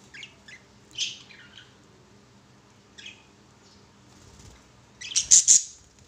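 Budgerigars giving short, high chirps a few times, then a louder flurry near the end with wing flaps as a budgie takes off.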